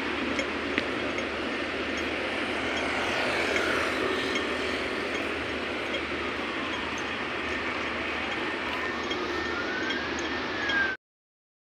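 Street traffic noise, a steady hum of passing vehicles. A faint whine slides down and then back up in pitch over several seconds. The sound cuts off abruptly near the end.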